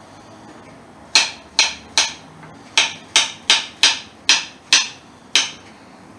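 Kitchen knife slicing a banana into rounds, the blade knocking on a wooden chopping board about ten times at a little over two a second, starting about a second in.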